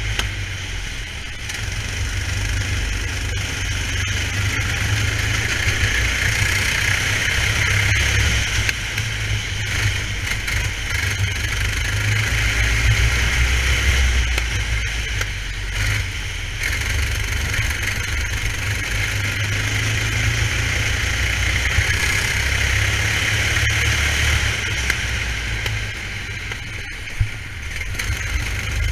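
Racing kart engine heard onboard at race speed, its level swelling and dropping every few seconds as the throttle opens and closes through the corners, over a heavy low rumble. A single sharp knock about 27 seconds in, as the kart rides over a kerb.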